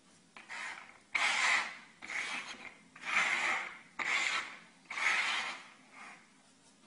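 A hand sliding small treats across a wooden tabletop: about six short rubbing scrapes, roughly one a second, the last one faint.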